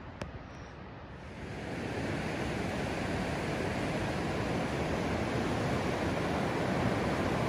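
Ocean surf breaking on a sandy beach: a steady wash of noise that swells up about a second and a half in and then holds. A single short click just after the start.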